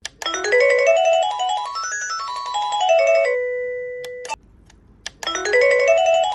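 Electronic chime of a wireless Wi-Fi doorbell playing its ringtone melody: a quick run of notes up and down that ends on a held note and cuts off. After about a second's pause with a couple of clicks, the same melody starts again.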